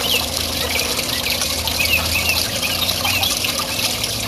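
Small pond waterfall splashing steadily, with a few short bird chirps over it.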